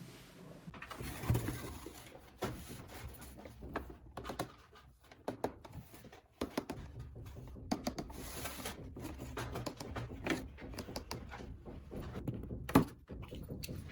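Small plastic toy pieces being handled and set down, making irregular clicks and taps, with one sharper knock near the end.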